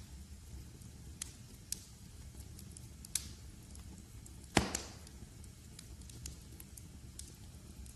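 Wood fire crackling in a fireplace: scattered sharp pops over a low steady rumble, with one loud pop about four and a half seconds in.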